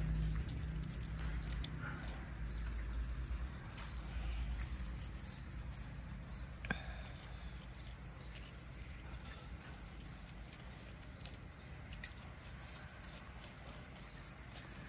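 Quiet outdoor garden ambience: faint high chirps repeating, a low rumble that fades over the first couple of seconds, and a single sharp click about seven seconds in.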